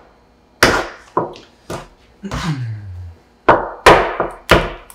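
Bench scraper, a metal blade on a wooden handle, chopping down through potato gnocchi dough and knocking on a wooden counter: three strikes, a pause, then a quicker run of four.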